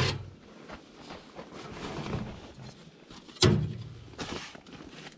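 Camping gear being handled: rustling with two sharp knocks, the louder about three and a half seconds in.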